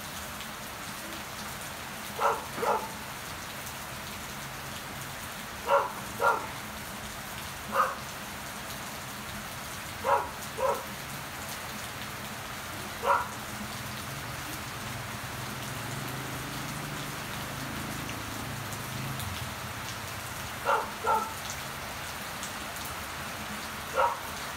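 Steady rain falling on garden plants and leaves. About eleven short, sharp sounds, several of them in quick pairs, stand out louder than the rain at irregular intervals.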